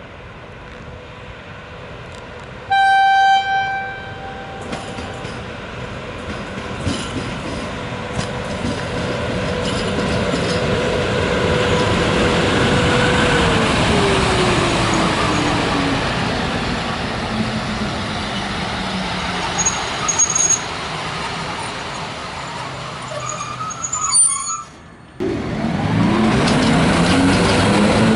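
PKP Class ET22 electric locomotive sounds its horn once, briefly, about three seconds in. Its running noise then builds as it approaches and passes close, with a whine that falls steadily in pitch as it goes by. Near the end, after a brief break, loud running noise returns with whines rising in pitch.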